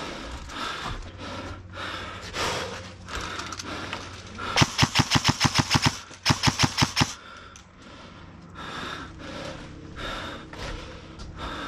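Airsoft rifle firing two quick bursts of rapid shots, each about a second long, the first a little after four seconds in and the second just after six seconds.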